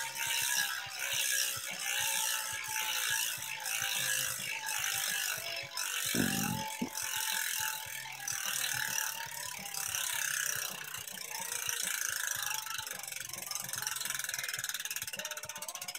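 DT Swiss 350 rear hub with a Bontrager 54-tooth star ratchet freewheeling as the wheel coasts on the stand: a continuous rapid buzz of ratchet clicks. The clicking settles into a more even ticking near the end. There is a low thump about six seconds in.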